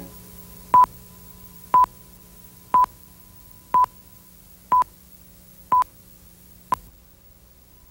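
Television countdown leader beeps: a short high-pitched beep once a second, all at the same pitch, seven in all, the last one cut short, over a faint steady hum.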